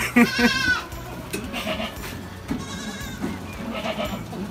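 Saanen dairy goats bleating, several calls, the loudest right at the start and fainter ones following.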